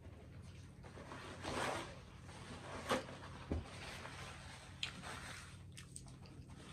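Close-miked chewing of a mouthful of Flamin' Hot Cheeto-crusted fried chicken, in soft swells with a few sharp clicks and one low knock.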